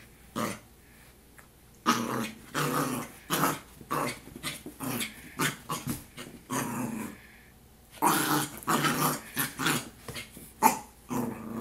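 Yorkshire terrier puppy growling and barking in a string of short bursts, upset at trash bags it is scared of.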